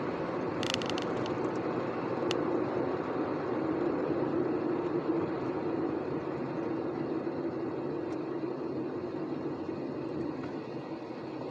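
Steady road and engine noise of a car driving, heard from inside the cabin, swelling a little midway and easing toward the end, with a few small clicks in the first couple of seconds.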